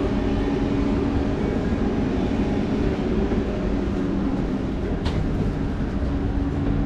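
Steady hum of a train standing at the platform with its doors open, heard from just inside the door vestibule, with a faint click about five seconds in.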